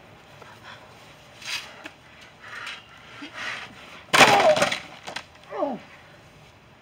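Scuffling in a backyard wrestling bout, then about four seconds in a sudden loud crash mixed with a yell as a wrestler goes down, followed by a short falling cry.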